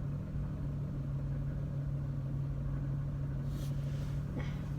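Car engine idling steadily, heard from inside the car as a low, even hum. A short hiss and a faint click come near the end.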